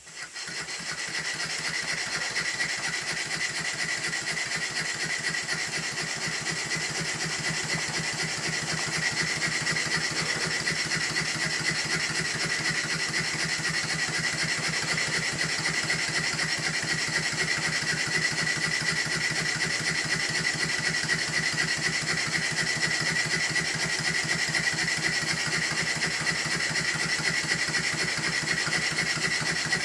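Stuart No. 9 model horizontal steam engine running steadily at speed, a rapid even beat with a steady high note over it, coming up to speed in about the first second.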